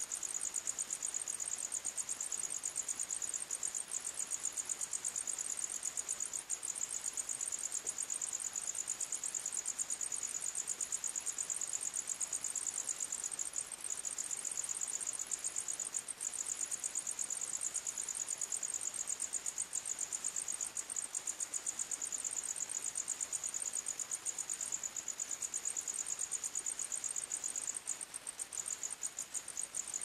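Crickets chirping: a continuous, high-pitched, rapidly pulsing trill that breaks up into shorter, more broken chirps near the end.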